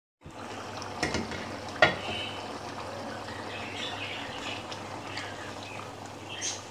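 Egg and potato curry gravy bubbling and sizzling in a nonstick kadai, with small crackles and pops. Two sharp clicks come about one and two seconds in, the second the loudest, and a spoon is stirred through the gravy near the end.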